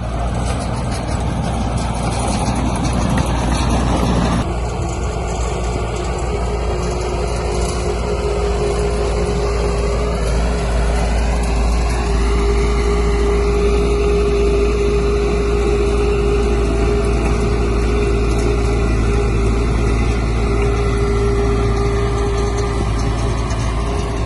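Heavy diesel engine of earthmoving machinery running steadily. Its pitch rises about ten seconds in as the engine is worked harder.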